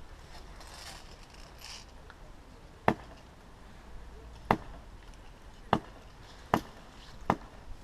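Airsoft replica firing five single shots, sharp cracks coming closer together as they go, from about one and a half seconds apart to under a second.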